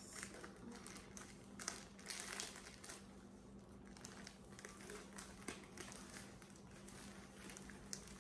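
Packaging rustling and crinkling in irregular handfuls as a parcel is opened by hand, busiest a second or two in. A faint steady hum sits underneath.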